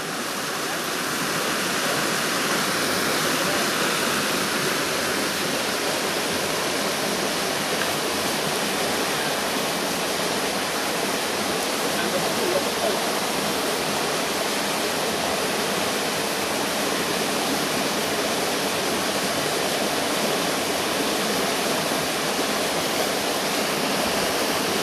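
Water pouring down a small rocky cascade into a river pool: a steady, unbroken rush of splashing water.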